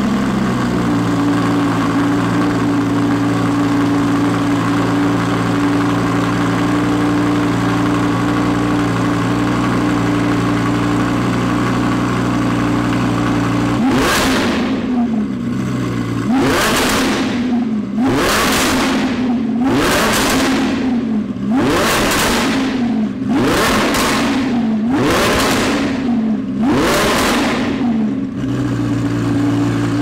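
Audi R8 Mk2 V10 Plus's 5.2-litre V10 through an Fi valved aftermarket exhaust, idling steadily. About halfway through it is revved in a run of about nine sharp throttle blips, each rising and quickly falling back. It then settles to idle again near the end.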